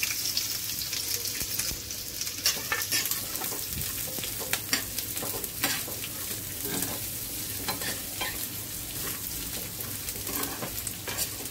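Chopped onion, garlic, ginger, green chillies and cashews sizzling in a little oil in a frying pan, stirred with a steel spoon that scrapes and clicks against the pan now and then.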